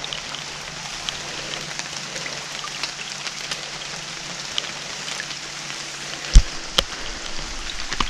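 Footsteps rustling through dry grass and fallen leaves, a steady crackle with scattered light ticks, and one dull thump a little past six seconds in.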